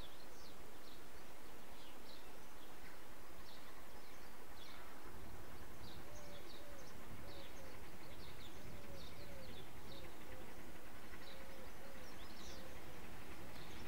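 Birds chirping over a steady background hiss, with short high calls throughout. From about six seconds in a lower call repeats about twice a second.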